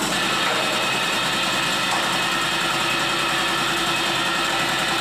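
Belt-driven piston air compressor running steadily, a continuous machine hum with a few steady tones.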